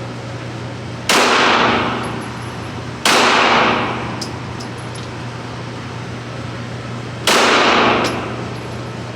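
Three single shots from a Glock 34 Gen 4 9mm pistol, about a second in, two seconds later and four seconds after that, each followed by a long echoing decay.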